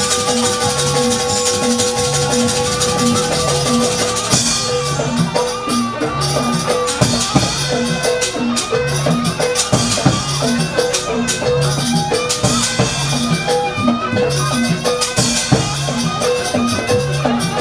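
Live jaranan gamelan music: drums and tuned gongs keep up a steady repeating beat. A long held note sounds for about the first four seconds, then the playing turns busier, with sharp clattering strokes over the beat.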